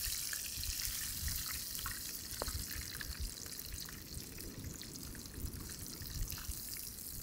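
Battered fish deep-frying in hot oil in a cast-iron skillet over a wood fire: a steady sizzle full of small crackles and pops.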